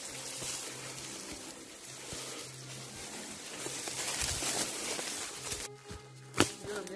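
Bamboo leaves and stems rustling and brushing as someone pushes through a dense thicket on foot. Near the end the rustling drops away and a single sharp crack stands out.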